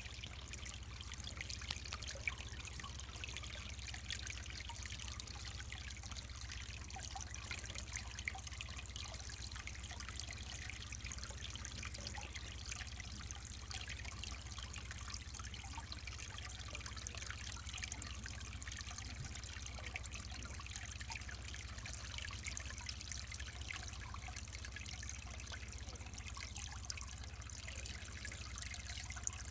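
Mountain valley stream trickling over rocks, a steady burble of running water with no pauses.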